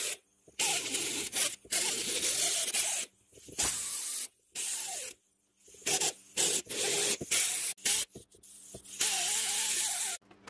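Pneumatic right-angle die grinder with a small abrasive disc, run in short on-off bursts about eight times, hissing air with a wavering whine as it grinds the aluminum transmission case. It is cleaning the cracked area down to bare metal as preparation for welding.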